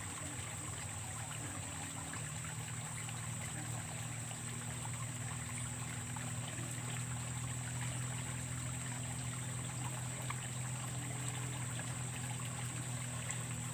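Steady trickle of water flowing along a ditch, with a faint steady low hum beneath it.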